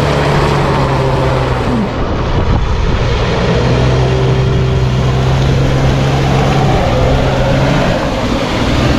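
Jeep Cherokee KJ's engine held at steady high revs, with its tyres spinning and churning in deep mud. The revs ease off briefly twice. The wheels are digging the SUV into a hole until it hangs on its differential.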